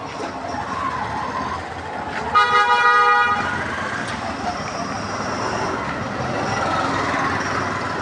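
A vehicle horn honks once for about a second, over steady outdoor traffic and crowd noise.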